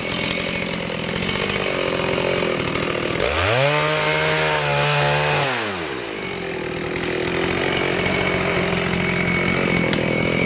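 Chainsaw engine running steadily, revved up about three seconds in, held at high speed for about two seconds, then let back down.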